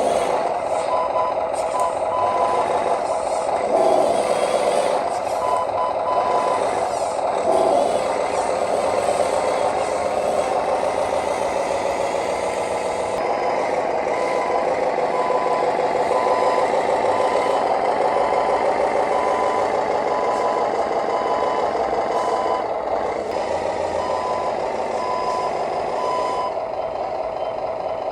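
Reversing beeper on an RC construction vehicle beeping about once a second, over a steady mechanical running sound of the model machinery. The beeps stop a little before the end.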